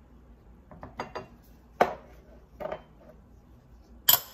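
Kitchenware clinking and knocking: a small bowl and silicone spatula tapped against a glass measuring cup while scraping in seasoning, then set down on the counter. A few light taps about a second in, two louder knocks, then a sharp clack near the end.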